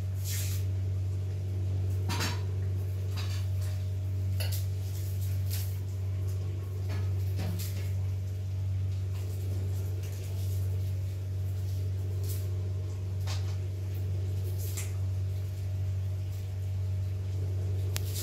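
Potatoes being peeled by hand and dropped into a metal pot: about a dozen short clicks and clinks of knives and potatoes against the pot and plates, over a steady low hum.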